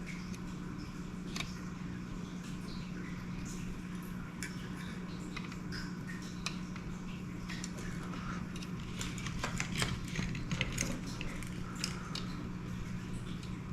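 Small sharp clicks and taps of a resistor's wire leads and a circuit board being handled and fitted, busiest about two-thirds of the way through, over a steady low electrical hum.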